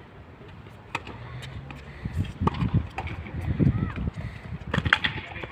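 Tennis rally: racket strikes on the ball, a sharp one about a second in and a louder one near the end, with a player's running footsteps on the hard court between them.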